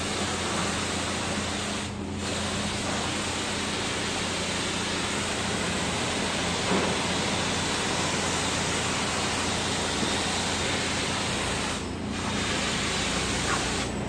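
High-pressure wand of a coin-operated self-service car wash spraying water onto a car body: a steady hiss that dips briefly twice, about two seconds in and again near the end.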